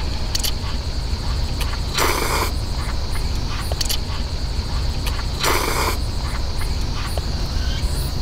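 A person slurping ramen noodles off a fork, two short loud slurps about two seconds in and again about five and a half seconds in, with light clicks of the fork against a metal cup. A steady high insect trill runs underneath.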